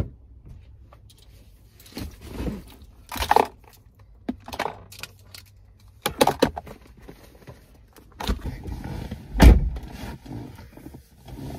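Irregular handling noises in a car's cabin: knocks, clicks and rustles as things are moved around the centre console, with a heavy low thump about nine and a half seconds in.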